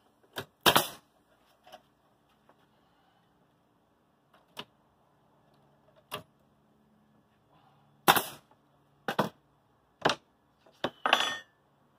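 Pneumatic nail gun firing nails into fiber-cement Hardie plank siding: a loud shot just after the start, then a run of about five shots roughly a second apart in the last four seconds, with a few fainter clicks between.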